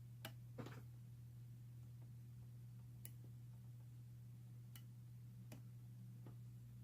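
Faint clicks of a lock pick and tension tool working the pin tumblers of a vintage Yale brass padlock: about six scattered clicks, two close together within the first second, then single ones, over a steady low hum.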